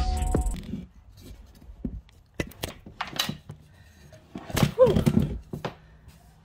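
Background music that cuts off in the first second, then a string of light knocks and thumps as the camera is handled and set down. A short, falling vocal sound comes about five seconds in.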